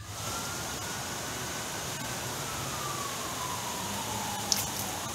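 A distant siren wailing slowly, its pitch falling and then starting to rise again near the end, over a steady rush of strong wind. A single sharp click about four and a half seconds in.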